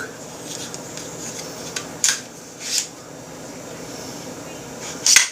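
The bolt of a partly stripped Smith & Wesson M&P FPC carbine being slid back by hand. A few short metallic scraping and handling sounds play over a steady background hiss.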